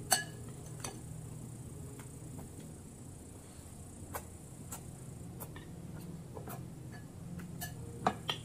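Metal spoon and fork clinking against a glass bowl. A sharp clink comes just after the start and two more close together near the end, with fainter scattered ticks and taps between over a low steady hum.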